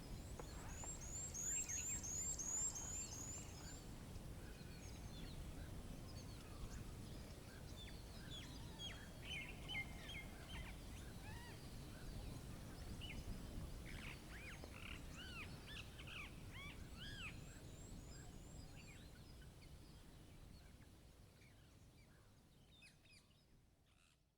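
Small songbirds chirping and calling over a low, steady wind rumble: a quick run of high, falling notes in the first few seconds, then scattered calls through the middle, the whole fading out at the end.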